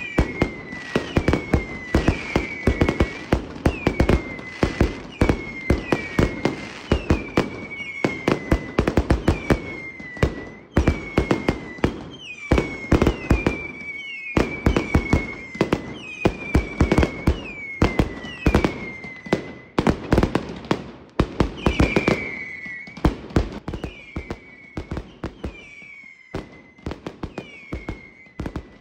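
Fireworks going off without a break: dense bangs and crackling pops, with a short whistle falling in pitch about once a second. The pops thin out in the last few seconds.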